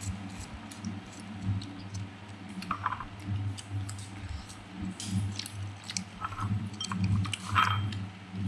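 Crunchy chewing of crisp mango slices, with scattered small clicks and crunches as the pieces are bitten and handled, over a steady low hum.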